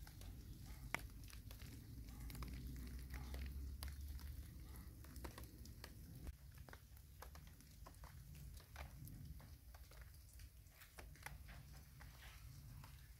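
Faint, scattered drips of rainwater pattering on leaves after a downpour, over a low rumble on the microphone.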